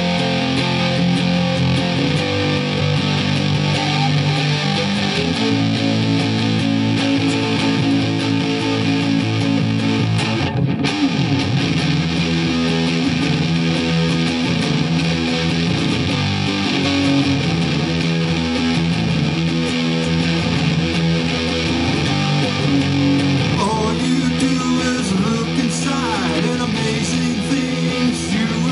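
Fender Stratocaster electric guitar playing an instrumental rock passage of held chords, with sliding, rising notes near the end.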